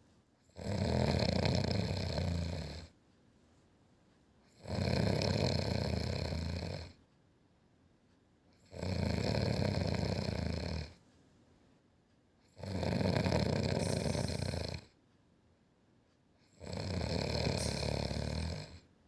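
Snoring in a slow, regular rhythm: five long snores, each about two seconds, one every four seconds or so, with quiet breaths between.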